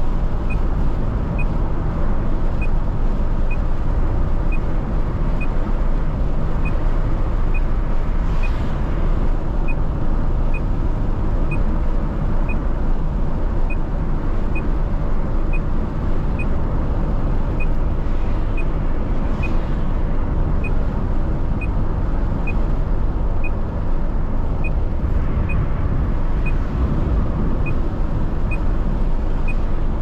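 Steady road and engine noise of a car cruising on a highway, heard from inside the cabin, with a few other vehicles rushing past. A faint regular ticking runs underneath.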